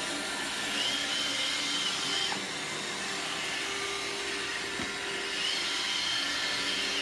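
Roomba robot vacuum running with a steady whir and a faint high whine that comes and goes.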